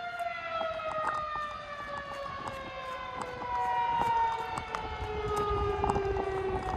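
Outdoor civil-defense warning siren winding down at the end of a test run, its pitched wail sliding slowly and steadily lower.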